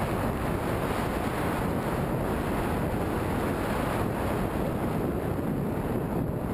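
Steady wind noise buffeting a helmet camera's microphone at riding speed, with no clear engine note through it.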